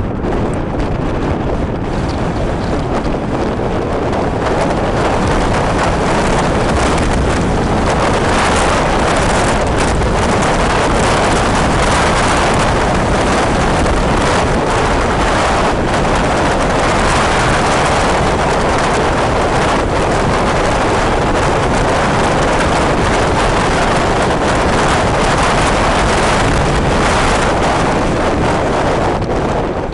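Wind rushing over the microphone of a camera in a moving vehicle, a loud, steady roar mixed with road noise.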